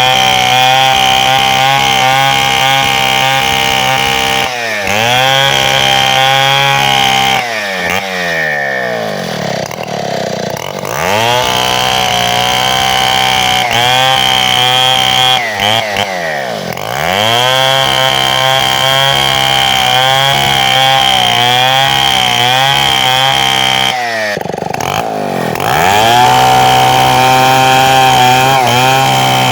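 Two-stroke chainsaw running at high revs. Its pitch drops and climbs back up four times: near 4 s, from about 8 to 11 s, near 16 s and near 24 s.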